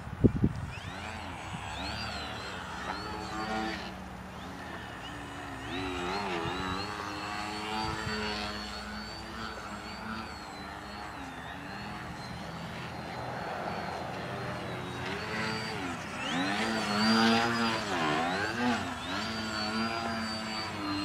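Electric motor and propeller of a small Twisted Hobbys Crack Yak foam aerobatic RC plane hovering. Its buzzing whine rises and falls in pitch again and again as the throttle changes, and is loudest a few seconds before the end.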